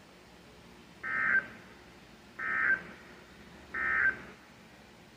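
Emergency Alert System end-of-message signal: three short, identical bursts of screeching SAME digital data tones, about 1.3 seconds apart. They mark the end of the severe thunderstorm warning broadcast.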